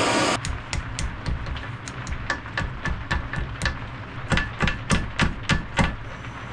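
A gas torch's hiss cuts off just after the start. Then a hammer taps a heated metal strip held in a vise, about four blows a second, the blows louder in the second half, bending a small curl into the end of the strip.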